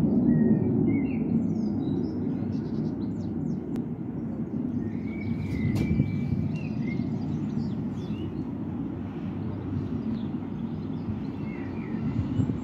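Outdoor ambience: a steady low rumble, with small birds chirping here and there.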